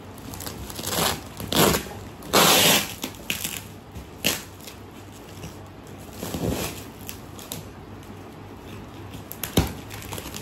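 Plastic packaging crinkling and crunching in irregular bursts as a dog tears and chews at it; the loudest burst comes a little over two seconds in, with a sharp snap near the end.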